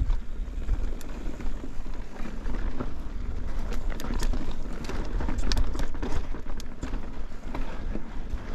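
Mountain bike being ridden over a rocky, gravelly trail: tyres crunching on loose stones, with frequent short clicks and rattles from rocks and the bike, over a low rumble of riding and wind.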